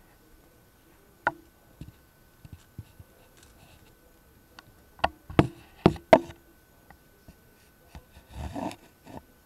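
A few sharp knocks and clicks from a hand-held stack of cube magnets bumping against an old CRT oscilloscope's screen and bezel, the loudest four close together about five to six seconds in. A short rustle follows near the end.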